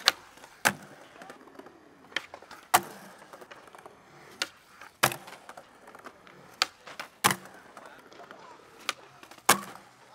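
Skateboard flip tricks on concrete: five times over, a sharp crack of the tail popping is followed about half a second later by the board slapping down on the landing. Between the pairs the wheels roll on smooth concrete.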